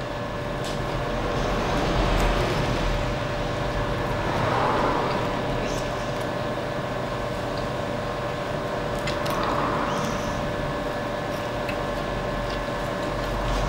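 Steady mechanical ventilation hum with a faint constant tone, swelling softly now and then, with a few faint clicks.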